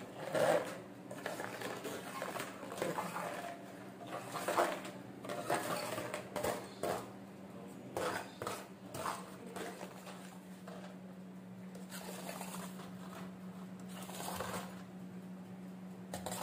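Crisp chocolate lidah kucing cookies being popped out of a baking mold and dropping onto a wire cooling rack: light, irregular clicks and rattles, busiest over the first ten seconds and sparser after. A steady low hum runs underneath.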